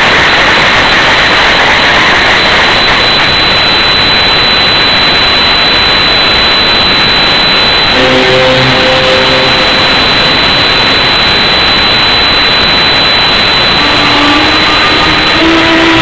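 Loud, steady rushing noise of a poor recording, with a few faint notes of tango music coming through about halfway and again near the end.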